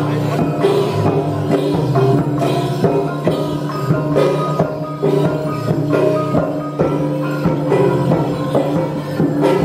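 Traditional Dayak gong-and-drum ensemble playing dance music: ringing struck gong notes and drum strokes in a steady, dense rhythm.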